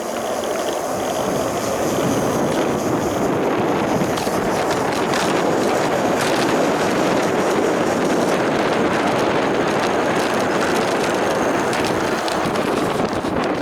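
Steady rushing noise of an electric bike on the move: wind over the microphone and the hum of its tyres, inflated to 19 psi, on the road. It drops away suddenly at the very end.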